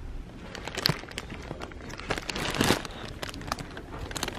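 Rustling and crinkling with scattered short clicks and knocks.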